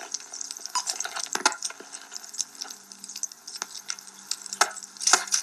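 Radio receiver being tuned: irregular crackling static and clicks, with a faint steady low hum coming in about halfway through.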